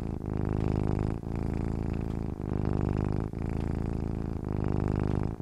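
A cat purring steadily, a low pulsing rumble with a short break about every second as it breathes.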